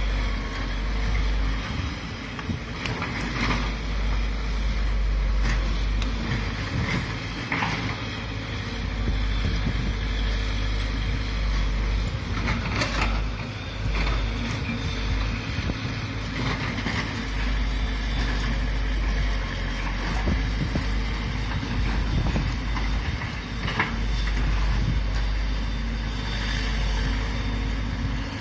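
Excavator engine running with a heavy low rumble that rises and falls, with wind buffeting the microphone. A few sharp knocks sound along the way.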